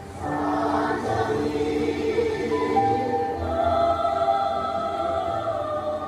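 Mixed choir of older men and women singing, holding sustained chords that change every second or so.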